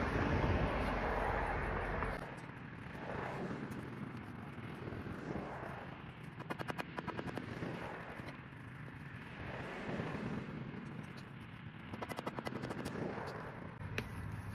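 A vehicle's low rumble for about the first two seconds. Then two bursts of rapid clicking, one near the middle and one near the end, and a single sharp metallic clink as the steel pry bar is struck into the ground at the stump.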